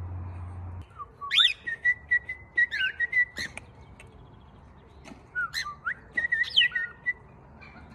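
Cockatiel whistling: two phrases, starting about a second in and again about five seconds in, each made of swooping notes and a long held, warbling note.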